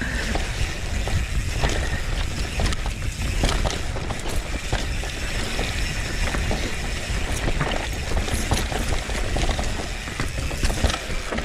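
Mountain bike riding down a rough trail: many short clicks and rattles from the bike's chain and frame over the rolling noise of the tyres, with a steady low rumble of wind on the microphone.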